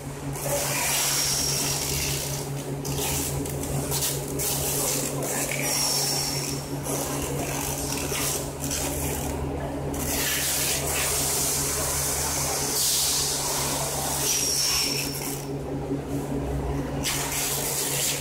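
Electric drive of an automatic aluminium suspension folding gate running as the leaves unfold and close: a steady low hum under a rushing hiss that swells and fades every few seconds. A brief high squeak comes several times.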